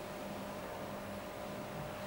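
Steady low hum with an even hiss: background room tone, with no distinct handling sounds.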